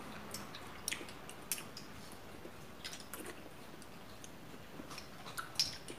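Metal spoons clinking and scraping in small glass dessert cups of buko salad: scattered light clicks at irregular intervals, with soft chewing between them.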